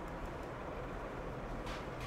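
Quiet room tone with a steady low electrical hum, and a faint computer-mouse click near the end as letters are entered on a mirrored phone keyboard.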